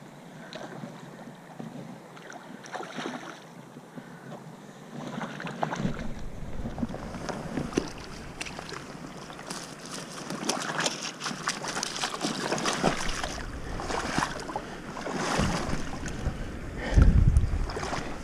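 Shallow river water splashing and sloshing around a trout held in a landing net, quieter for the first few seconds and then busier with sharp splashes. Wind buffets the microphone, with a heavy low bump near the end.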